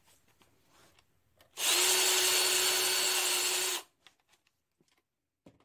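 A handheld power tool runs in one burst of about two seconds, starting about a second and a half in: a steady whine over a loud hiss, then it stops.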